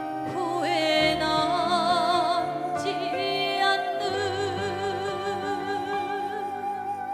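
Female singer belting the climax of a Korean ballad, holding long high notes with wide vibrato over a steady instrumental backing; a new note slides up about three seconds in and is held to the end.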